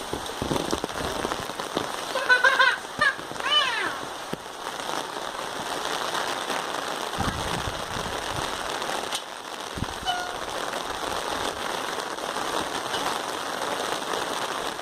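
Steady rain falling and pattering on open umbrellas, a continuous hiss, with a few short high-pitched calls about two to four seconds in.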